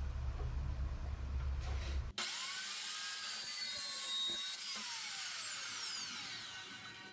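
Power saw cutting steel bar stock. About two seconds in, the sound changes suddenly from a low hum to a high, whining cutting sound with falling tones, which fades near the end.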